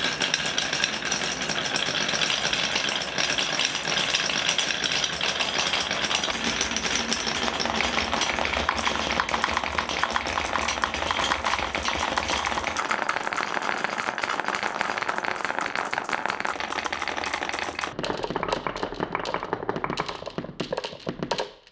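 Many marbles rolling and clattering down HABA wooden marble-run slopes: a dense, continuous rattle of fast clicks that thins out and stops just before the end.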